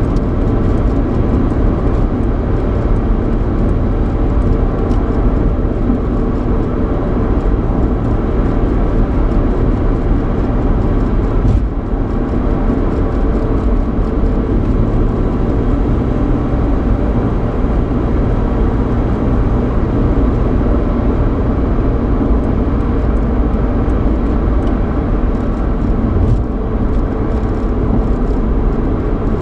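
Cabin noise inside a Ford Mustang with a 3.8-litre V6 while driving: steady road noise and engine hum, a continuous low rumble. There is one brief click about eleven or twelve seconds in.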